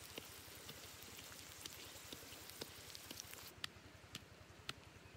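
Faint sizzling and bubbling of shrimp and carrots cooking in a clay dish over a wood fire, with scattered small crackles. About three and a half seconds in the sizzling drops away and is replaced by sharp knocks, about two a second.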